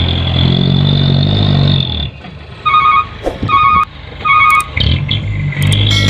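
Loaded dump truck's engine running steadily, then it drops away and a reversing alarm sounds three evenly spaced beeps; the engine sound returns near the end.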